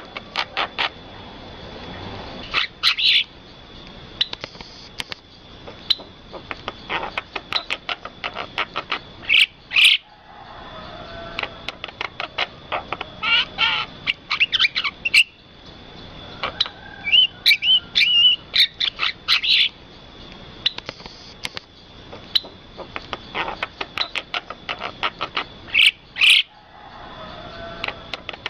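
Birds chirping and calling in quick runs of short, sharp notes, over a steady high thin tone. The sound breaks off abruptly twice.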